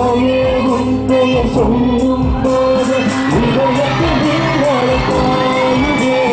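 Live pop band playing through a stage PA: keyboards and bass guitar over a steady drum beat, with singers holding long, wavering notes.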